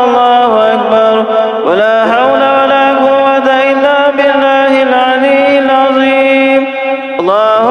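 A man chanting Arabic dhikr (praises of God) into a microphone between tarawih prayers, in long, drawn-out melodic notes. He breaks off and starts a new phrase with an upward swoop about two seconds in, and again near the end.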